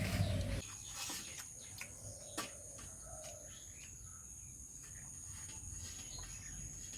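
Birds calling over a steady high-pitched insect drone, with scattered light clicks; a low rumble cuts off about half a second in.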